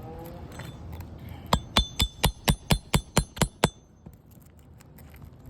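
A hammer striking a steel nail puller about ten times in quick succession, about four blows a second, each with a short metallic ring, driving the puller under a roofing nail in an asphalt shingle.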